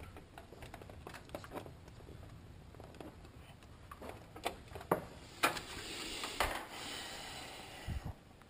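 Handling noise from plugging an AV cable into a TV: scattered light clicks and knocks of plugs and cables, with a few sharper clicks and a stretch of soft rustling in the second half.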